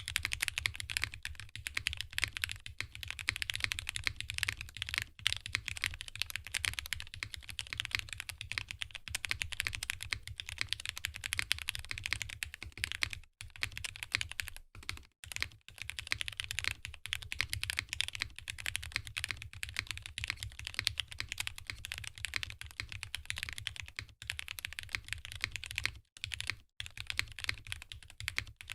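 Fast, continuous typing on a custom mechanical keyboard with Gateron Ink Black linear switches on 57 g long springs, an FR4 plate and GMK keycaps: a dense run of keystroke clacks, broken by brief pauses about halfway through and again near the end.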